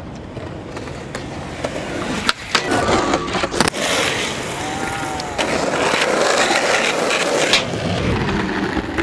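Skateboard wheels rolling on concrete, with several sharp clacks of the board between about two and four seconds in.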